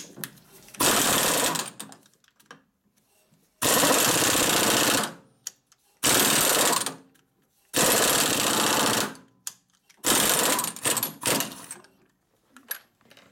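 Pneumatic zip gun run in five short bursts of a second or so each, starting and stopping abruptly.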